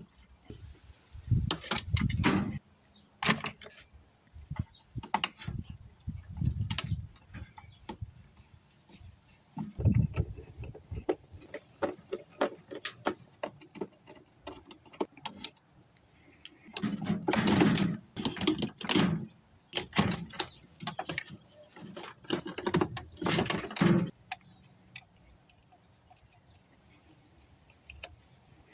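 Metal parts of a washing machine being handled and pried apart during a scrap teardown: irregular clanks, knocks and rattles in short bursts, the busiest stretch near the end, then only faint small ticks.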